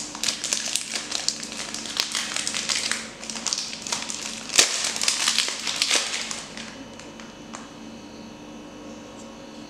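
Crinkling and crackling of a chocolate bar's wrapper being opened by hand, with one sharper crack about four and a half seconds in. It stops at about six and a half seconds, leaving a steady low hum.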